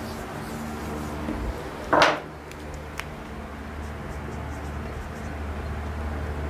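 Whiteboard work: a brief loud scuffing noise about two seconds in, a sharp click a second later, then faint marker strokes on the board, over a steady low hum.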